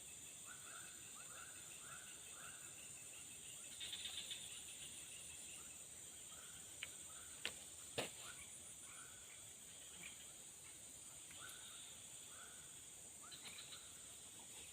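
Faint outdoor insect chorus: a steady high-pitched drone, with a short call repeated about every half second. A brief chirping burst comes twice, and there are three sharp clicks near the middle.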